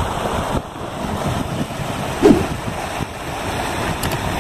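Wind buffeting the microphone over muddy rainwater runoff flowing along a dirt track. A brief louder sound stands out about two seconds in.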